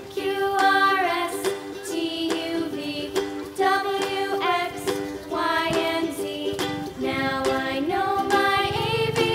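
Background music: a song with singing over a plucked-string accompaniment.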